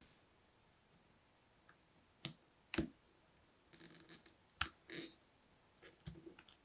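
Small metal watchmaker's tools clicking and scraping against a vintage Zenith Respirator X as it is taken apart. There are three sharp clicks, the loudest, with softer little clicks and scratches between them.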